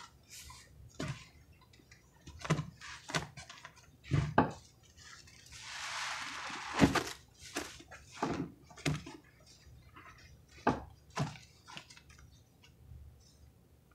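Sponges soaked in creamy pine cleaner suds being squeezed and pressed by hand in a basin: irregular wet squelches and squishes, with a hiss of crackling foam around six seconds in.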